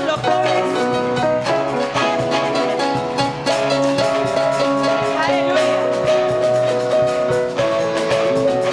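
Live church worship band music: held chords with guitar and a drum kit keeping a steady beat.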